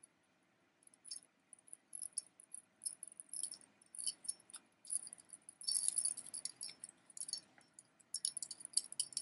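Gold-tone metal bib necklace being handled: its chain and leaf-shaped metal pendants clink and jingle in quick light taps, busiest around the middle and again near the end.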